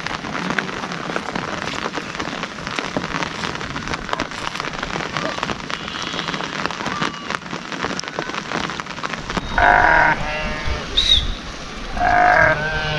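Steady rain falling, then sheep bleating twice near the end, loud calls about two seconds apart.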